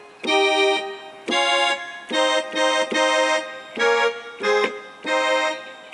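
Yamaha electronic keyboard playing a slow melody in a reedy, accordion-like voice: a string of held notes, several sounding together, each cut off cleanly before the next.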